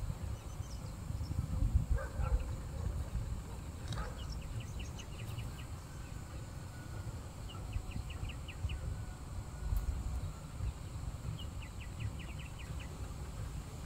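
Rural outdoor ambience: a steady low rumble, with three short runs of quick, high ticking chirps from a small animal, each about a second long, near five, eight and twelve seconds in.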